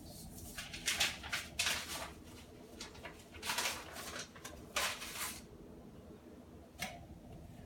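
A person hiccuping over and over: about five short, sharp hiccups at uneven intervals, each cut off suddenly.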